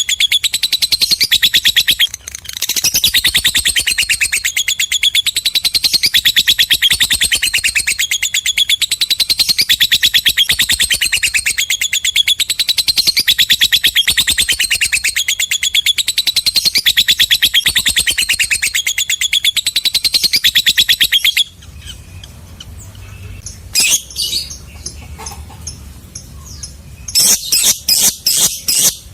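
Lovebird in a long, very rapid, high-pitched chattering trill (the 'ngekek' song), broken briefly about two seconds in, then running unbroken for about twenty seconds before cutting off suddenly. Quieter scattered chirps follow, and a quick run of sharp chirps near the end.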